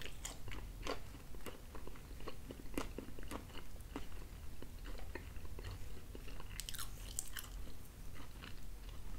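A person biting into and chewing a mouthful of thin-crust pizza close to the microphone, with many small irregular clicks throughout.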